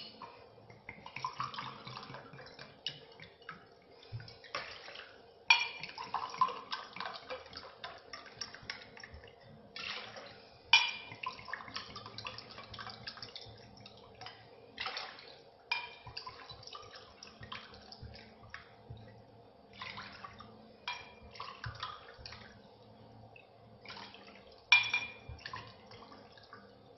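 Water poured by the glassful into a pot to make sugar syrup: several separate pours a few seconds apart, each starting sharply.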